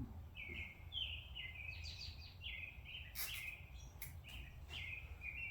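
A small bird chirping over and over, short quick notes several times a second, with a few sharp clicks and a steady low hum underneath.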